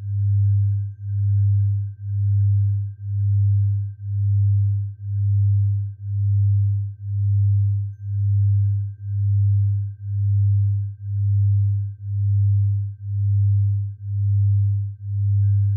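Synthesized tinnitus sound-therapy tones: a low, hum-like pure tone pulsing smoothly once a second, with a faint steady high tone beneath it.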